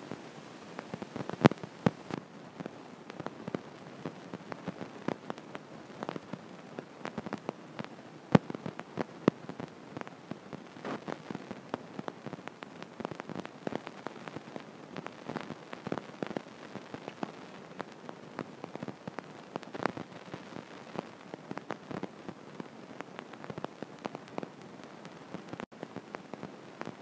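Irregular crackling clicks, several a second, over a faint steady hiss, with a few sharper clicks in the first seconds and around a third of the way through.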